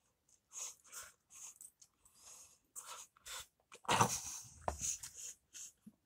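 A person chewing and slurping cup instant noodles eaten with a fork, in short irregular mouth sounds. About four seconds in there is a louder burst as the paper pot and fork are handled.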